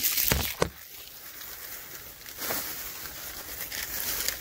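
Plastic tool packaging being handled and crinkling, with two short knocks about half a second in.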